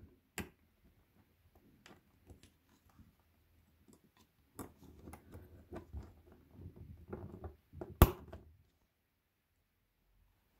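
Small steel parts of a pencil-sharpener chuck being handled: light clicks and soft scraping as a wire spring is worked around the carrier plate, with one sharp metallic click about eight seconds in as a spring hook snaps into place.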